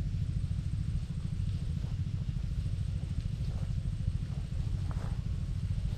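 A small engine running steadily, a low, rapid puttering.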